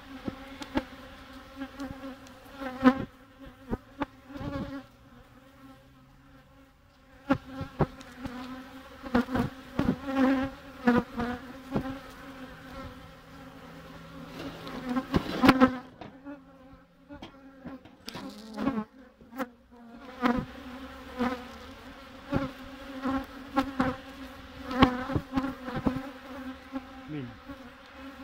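Honeybees buzzing at an open hive: a steady hum from the colony, broken by many short sharp knocks and bumps close to the microphone, which are the loudest sounds.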